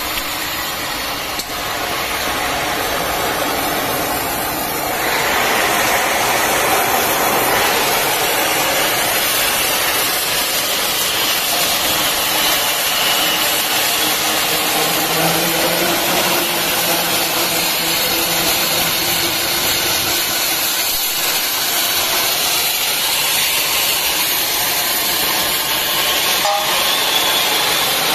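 Oxy-fuel cutting torch of a portable CNC flame-cutting machine hissing steadily as it cuts through steel. The hiss grows louder about five seconds in.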